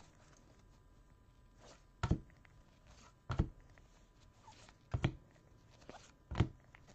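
Trading cards being handled and set down one at a time by gloved hands: four short, soft thunks spaced about a second and a half apart.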